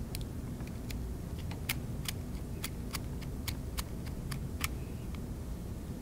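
Light, irregular clicks and ticks of a flat-blade screwdriver turning a small machine screw through a metal DB9 connector backshell into its nut, about fifteen clicks over the stretch.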